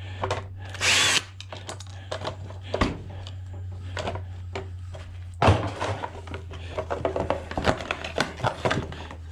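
A power drill backing out 1/4-inch screws from an ice maker's metal parts: a short whirring burst with a rising whine about a second in, then clicks and metal rattling, with one loud knock about halfway through.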